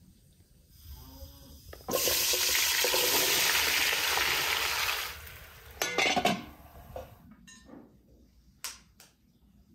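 Cubed raw potatoes dropped into a hot aluminium frying pan, setting off a loud sizzle that starts suddenly about two seconds in and lasts about three seconds before fading. A few clattering knocks follow, then scattered light clicks.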